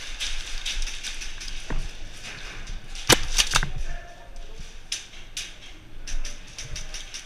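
Airsoft gunfire and BB hits in an indoor game: scattered clicks and taps, with a quick run of about four sharp cracks about three seconds in.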